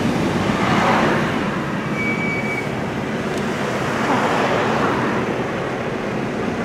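Steady car and road noise heard from inside a slowly moving car, with a brief high steady tone about two seconds in.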